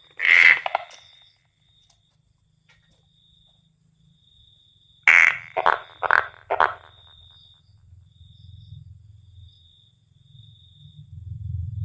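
Striped tree frog (four-lined tree frog, Polypedates leucomystax) calling: one short call just after the start, then after a pause of about four seconds a run of four short calls about half a second apart.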